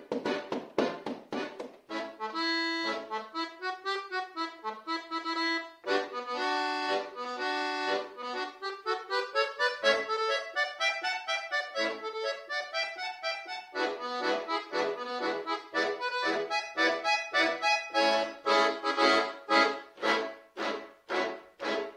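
Solo accordion playing: rapid repeated chords at the start, then a melodic passage of held notes and running lines, returning to fast repeated chords near the end.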